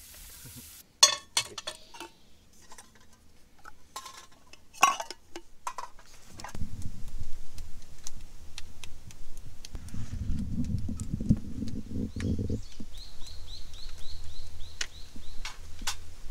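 Scattered light clinks of camp dishes and utensils. Then a low rumble sets in, and near the end a bird calls with a quick run of about three high chirps a second.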